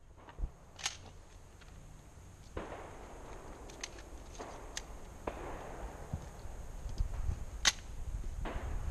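A few sharp clicks, and faint shotgun shots from elsewhere on the course, each starting suddenly and dying away over about a second, three times.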